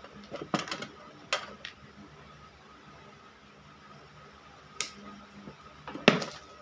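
Hand tools being picked up and handled on a workbench: a series of short clinks and clatters, a quick cluster near the start and the loudest knock about six seconds in.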